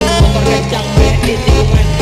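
Music with a strong bass beat.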